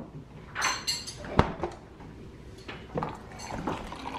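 A refrigerator door handled and shut: a brief rattle about half a second in, then a single sharp thump about a second and a half in, followed by a few light clicks.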